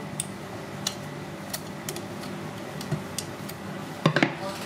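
Kitchen scissors snipping through a mantis shrimp's shell in scattered light clicks, then a quick cluster of several louder knocks on the wooden chopping block near the end.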